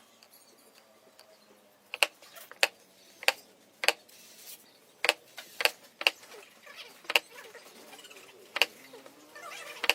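A series of about ten sharp knocks at uneven intervals of half a second to a second and a half, each short and crisp.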